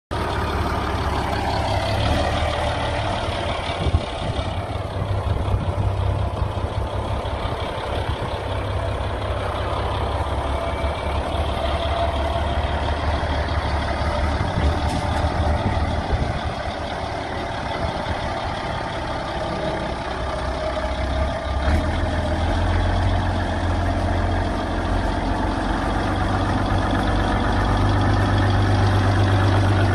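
SAME Drago tractor's air-cooled diesel engine running at low revs as the tractor is driven slowly, with a steady low drone that grows louder in the last several seconds as it climbs a loading ramp. A sharp knock sounds about four seconds in.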